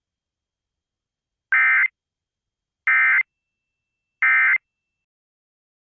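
Emergency Alert System end-of-message (EOM) signal: three short bursts of SAME digital data tones, each about a third of a second long and about 1.3 seconds apart, marking the end of the alert.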